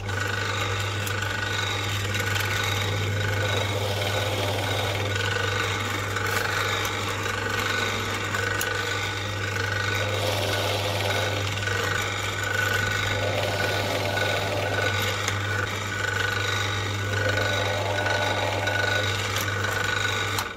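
Drill press running with a small cutter bit milling slots into end-grain wood and epoxy resin for a clock face's hour divisions. A steady motor hum runs under a rasping cutting noise that swells and eases every few seconds as the bit is worked through each slot.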